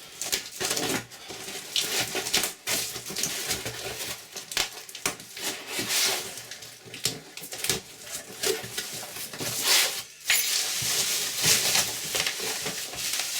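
A cardboard parcel being unpacked by hand: a run of rustling, crinkling and handling knocks, with a longer stretch of tearing or rustling packing near the end.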